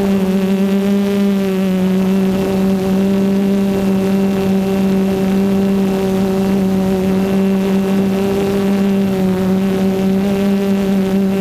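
Motors and propellers of a Hoverthings Flip 6s FPV quadcopter humming steadily in flight, heard from the GoPro mounted on the craft. The pitch holds almost constant, wavering only slightly.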